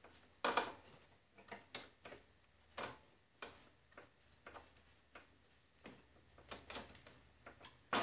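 Scattered light clicks and knocks of metal parts as a deck belt is worked around a pulley and the belt clutch pushed in on a Snapper rider mower, the loudest knock about half a second in.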